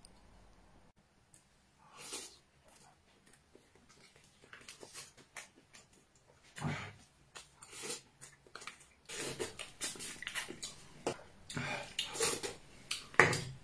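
A metal spoon clicking and scraping inside a crab shell, then close-up eating sounds as crab meat is taken off the spoon. The eating sounds come thick and fast over the last few seconds, with one sharp sound near the end.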